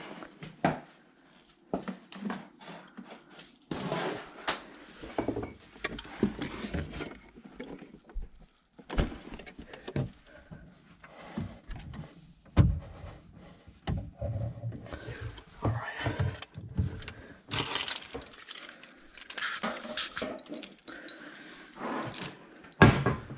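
Irregular clinks, knocks and rustles of things being handled and moved about, with no steady running sound.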